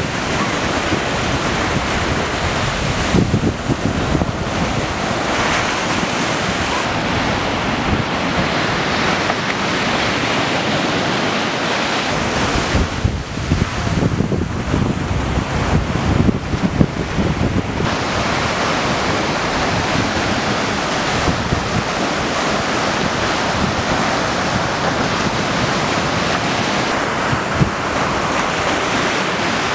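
Ocean surf washing onto a beach in a steady roar of noise, with gusts of wind buffeting the microphone, strongest a few seconds in and again through the middle.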